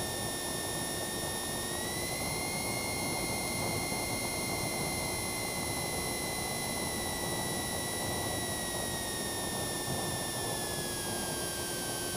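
Cessna 172's piston engine and propeller droning steadily inside the cockpit during the approach. A high whine in the drone rises slightly about two seconds in and sinks again near the end.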